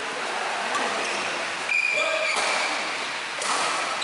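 Badminton doubles rally in a sports hall: sharp racket strikes on the shuttlecock and shoes squeaking on the court floor, with a longer squeak about two seconds in, over background voices.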